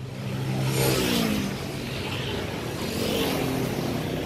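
Road traffic: a motor vehicle's engine passes close by about a second in, its pitch sliding down as it goes, then a steady engine hum with a second, smaller rise later.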